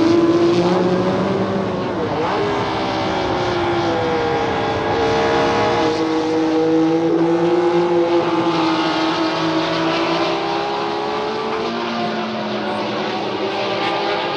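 Several racing car engines running hard at once, their pitches rising and falling as the cars accelerate and pass, over a steady rush of noise.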